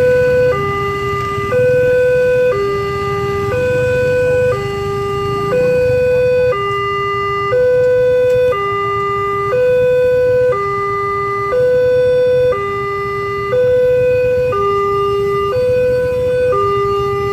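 Railway level-crossing warning alarm sounding its two-tone signal, a higher and a lower tone alternating, each held about a second: the sign that a train is approaching and the crossing is closed. Motorcycle engines idle underneath as a low rumble.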